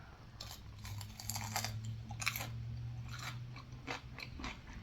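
Close-up chewing of food, with many short irregular mouth clicks. A faint steady low hum runs underneath for most of it.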